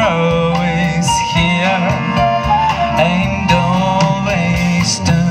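Live jazz band playing a song with violin, saxophone, electric guitar, keyboard, bass and drums over a steady bass line.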